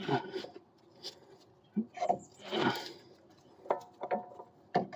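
Scattered knocks, clicks and a short scrape of metal suspension parts being handled as a front lower control arm is worked free of its ball joint.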